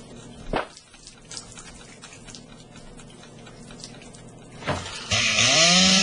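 Low hiss with a few faint clicks and two dull thumps. About five seconds in, a chainsaw starts up loud and its engine revs upward in pitch.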